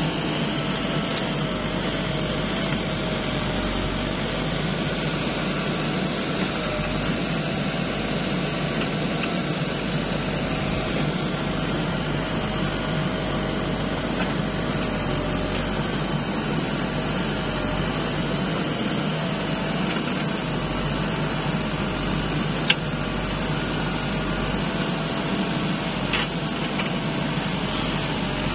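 JCB backhoe loader's diesel engine running steadily under load while the backhoe digs, with a steady, slightly wavering whine over the engine noise. Two short sharp knocks come in the second half.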